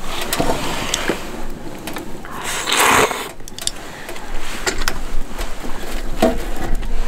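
Someone eating from a bowl with chopsticks: scattered clicks of the chopsticks against the bowl, with a short breathy rush, the loudest sound, about three seconds in.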